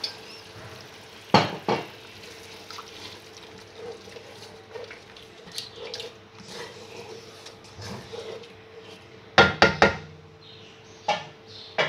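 Spatula stirring a cup of water into fried spice masala in a cooking pot, the liquid sloshing and bubbling; sharp knocks of the spatula on the pot twice a little over a second in and three or four times in quick succession about nine and a half seconds in.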